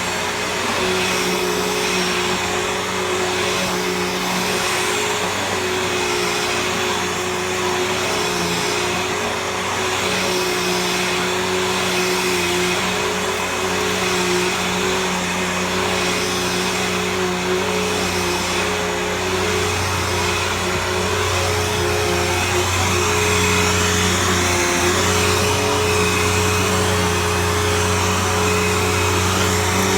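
Bissell CleanView Helix Select bagless vacuum cleaner running steadily, a constant motor whine over rushing airflow noise as it vacuums carpet. The low hum grows a little stronger about two-thirds of the way through.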